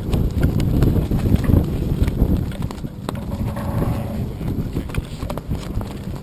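Wind buffeting an outdoor action camera's microphone: a loud, irregular low rumble that eases about two and a half seconds in, with scattered light knocks.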